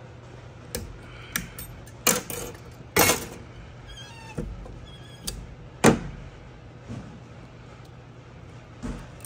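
Metal parts of a TH350 transmission clicking and knocking as a snap ring is worked out with a pick and the intermediate sprag's outer race is lifted off and set down on the bench. A handful of separate clicks, the loudest near six seconds in, over a low steady hum.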